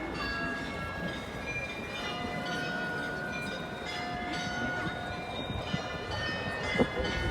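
Bells of the Marienplatz clock-tower glockenspiel ringing a tune, many overlapping ringing tones, over the murmur of a crowd, with one sharp knock near the end.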